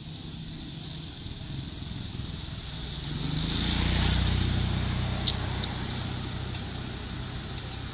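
A motor vehicle driving past: its engine sound swells to a peak about four seconds in, then slowly fades.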